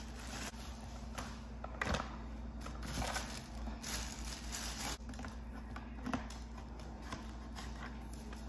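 Plastic packaging bags crinkling and rustling as parts are unwrapped by hand, in several short spells over a low steady room hum.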